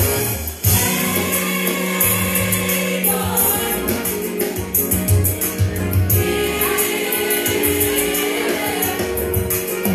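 Gospel music: a choir singing held notes over a steady beat.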